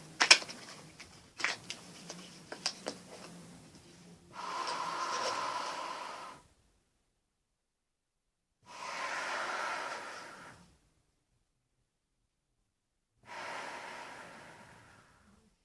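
Handling knocks and clicks, then three long, noisy breaths drawn through a Soviet GP5 gas mask fitted with its hose, each about two seconds long with a silent pause between.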